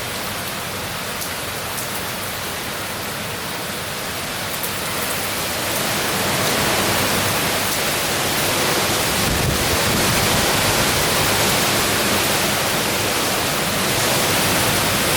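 Hurricane wind and rain outdoors: a steady rushing noise that grows louder about six seconds in and stays up.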